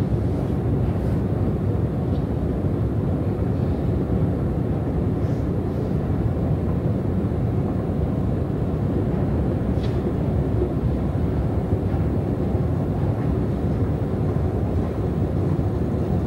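Long subway escalator running, a steady low rumble from its moving steps and drive, with a few faint short high sounds.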